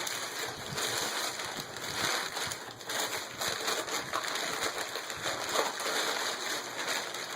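Packing paper and plastic wrapping rustling and crinkling as it is pulled off the item by hand: a steady crackle full of small sharp crinkles.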